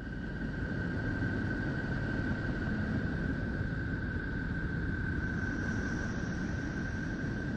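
NASA sonification of radio emissions from space, converted to sound: a dense, steady rumbling hiss with a constant high tone over it.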